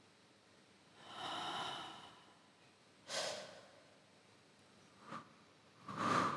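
A person breathing audibly in a hushed hall: one longer breath about a second in, then three short, sharper breaths near three, five and six seconds.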